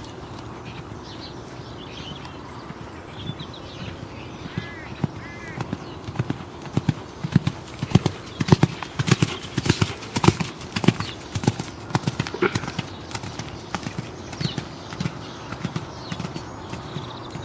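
A ridden pony's hoofbeats on an arena surface, a rhythmic run of dull thuds that grows loudest in the middle as the pony passes close by, then fades as it moves away.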